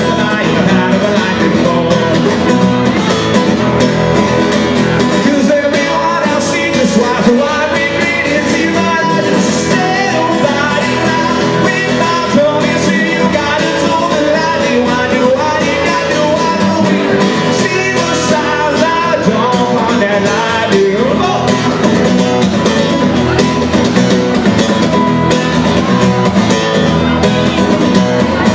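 Live solo acoustic guitar, strummed steadily, with a man singing over it through the PA.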